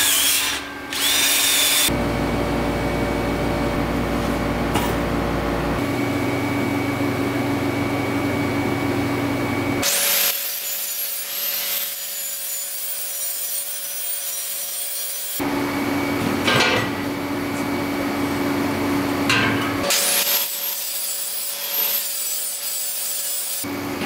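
Angle grinder grinding welds on a steel square-tube frame, heard as a harsh, high-pitched grinding in two stretches of several seconds each. These are cut together with other steady shop-tool sounds.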